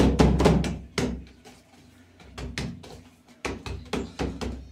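Hands pressing and patting rosca dough on a work table: a run of quick knocks and taps, thickest in the first second and again in the second half, with a quieter stretch in between.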